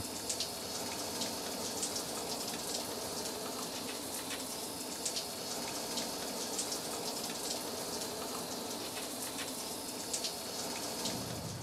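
Steady hiss of falling water, peppered with many small drop ticks.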